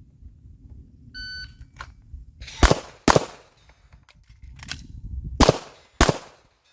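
A shot timer beeps once. A handgun then fires two quick shots, pauses about two seconds for a magazine reload with a few small clicks, and fires two more shots.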